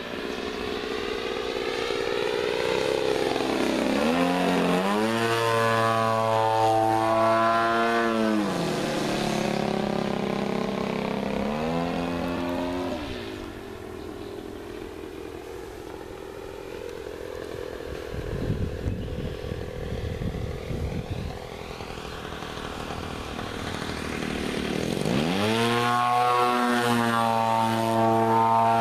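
Gary Ward MX2 radio-controlled aerobatic airplane flying manoeuvres, its motor and propeller rising and falling in pitch several times as it climbs, dives and passes. It grows fainter in the middle, with a few seconds of low rumble, and comes back loud near the end.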